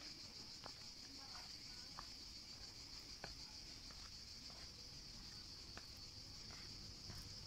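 Faint, steady chorus of crickets, one continuous high trill, with soft footsteps on stone steps about once a second.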